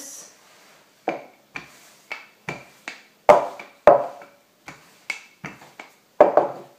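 Wooden rolling pin rolled back and forth over dough on a wooden board, knocking sharply on the board with each stroke, about two knocks a second, the loudest around the middle.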